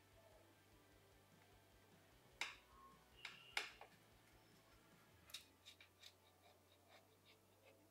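Pizza wheel cutting through a crispy baked chicken-breast crust: faint crunches and clicks, with a few sharper cracks in the middle, then a quick run of small ticks near the end.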